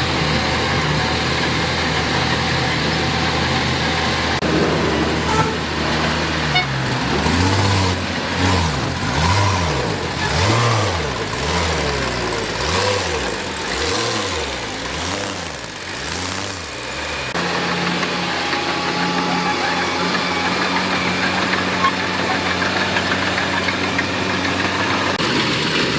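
Heavy diesel engine running. It is steady at first; from about five seconds in, its pitch rises and falls over and over, with repeated knocks, until it switches abruptly back to a steady run about two-thirds of the way through.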